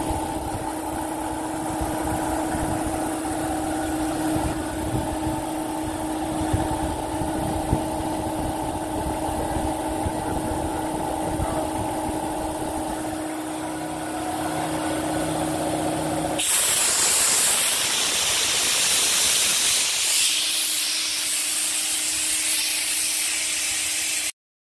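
Speedaire 3 hp single-stage, splash-lubricated electric air compressor running with a steady hum and a low pulsing from the pump. About two-thirds of the way in, the low pulsing has dropped away and a loud steady hiss of escaping air takes over, cutting off abruptly near the end.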